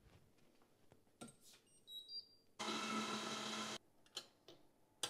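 A few faint electronic beeps, then an electric stand mixer whisking eggs and sugar runs for about a second and cuts off sharply.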